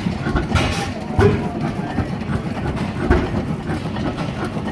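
Fairbanks-Morse 15-25 hp tractor engine running at a slow idle: a steady low chugging with two louder firing beats, about a second in and about three seconds in.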